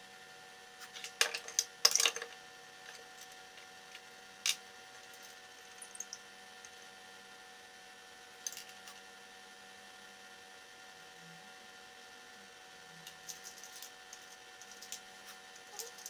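Wooden blocks and small metal parts handled and set down on a plywood workbench: scattered clicks and knocks, the loudest cluster about a second or two in and a run of small clicks near the end, over a faint steady hum.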